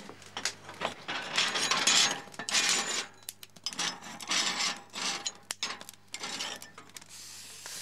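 Iron hook scraping and clanking on the cast-iron rings of a wood-burning cookstove's hob as the rings are lifted off and the fire in the opening is poked: a run of irregular rasping scrapes, loudest in the middle.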